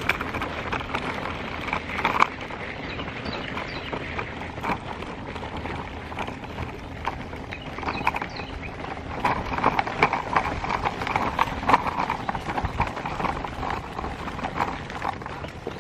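Stroller wheels and footsteps crunching and rattling over a gravel trail: a steady stream of small, irregular clicks and crunches.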